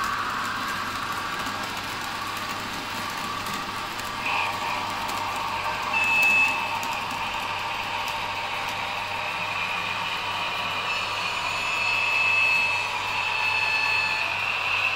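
Model freight train rolling past on the layout track: a steady hum and rumble of the locomotive's motor and the wagons' small metal wheels on the rails. A thin, high, steady squeal comes in briefly around the middle and again near the end.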